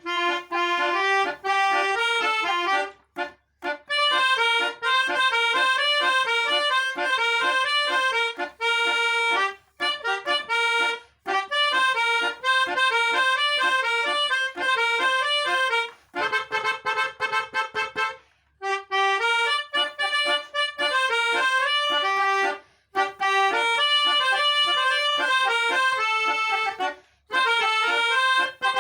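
A reedy, accordion-like melody plays quick runs of notes in short phrases, broken by brief gaps of silence. About 16 seconds in there is a noisier passage lasting a couple of seconds.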